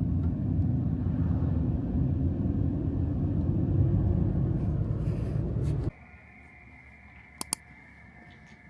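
Loud, steady low rumble that cuts off abruptly about six seconds in. A quiet background with a steady high hum follows, with two quick clicks close together.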